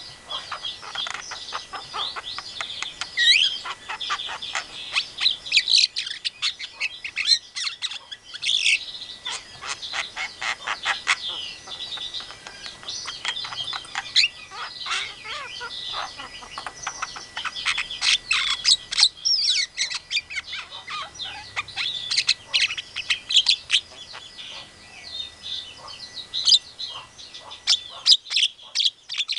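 Javan myna (jalak kebo) singing a fast, varied run of chattering chirps, clicks and quick whistles, with brief thinner stretches along the way.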